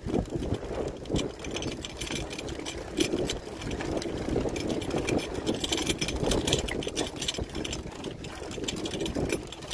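Mountain bike rattling and clicking over a rough gravel-and-ash dirt road, tyres crunching on stones, with irregular knocks from the bumps.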